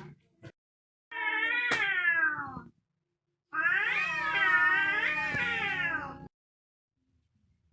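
Angry domestic cat yowling: two drawn-out, wavering yowls, the second longer than the first, with a short sharp click during the first.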